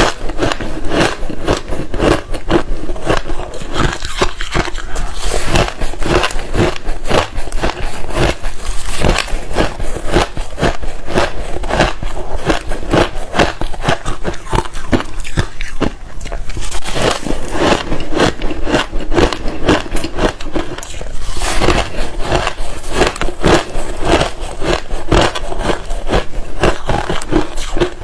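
Ice being bitten and crunched close to the microphone: a dense, continuous run of sharp crackling crunches, many per second.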